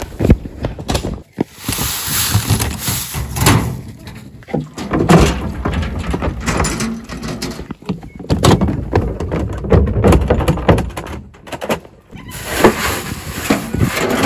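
A metal wheelbarrow being pushed over rough, stony ground, rattling and knocking with irregular loud thumps, along with footsteps in rubber boots.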